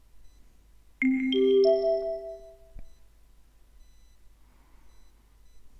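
Three-note rising chime about a second in, each note ringing on and fading. It is the signal tone of a recorded listening exam, marking the start of the next item.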